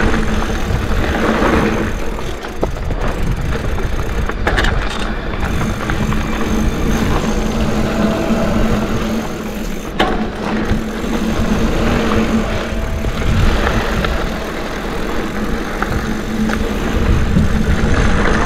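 Mountain bike rolling down a dirt trail: knobby tyres over dirt and rocks, the bike rattling, over a steady low rumble. Two sharp knocks stand out, about four and a half and ten seconds in.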